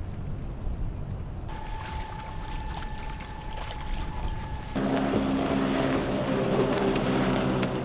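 Boat engine running on the water, with a steady high-pitched tone over the middle part. A louder engine comes in from about five seconds in.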